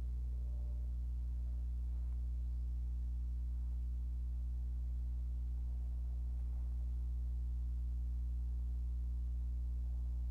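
Steady low electrical hum, mains hum, with a stack of evenly spaced higher overtones, unchanging throughout.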